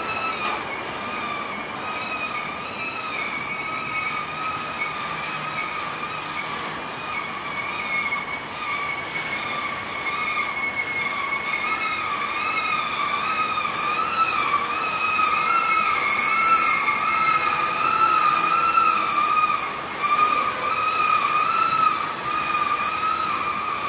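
Freight train's boxcars and autorack cars rolling past with a continuous high-pitched squeal from steel wheels on the rails, the pitch wavering up and down. The squeal gets louder in the second half.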